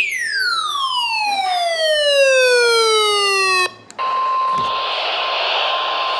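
Emergency alert tones: a harsh electronic tone falling steadily in pitch for about three and a half seconds and cutting off abruptly. A steady, high, single-pitched alert tone then returns under hiss.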